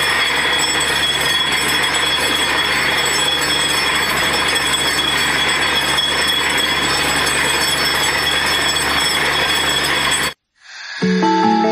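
Borewell drilling rig running steadily, a loud machine din with a low hum and steady high whines, as water is blown out of the newly drilled bore. The din cuts off suddenly about ten seconds in, and guitar music starts.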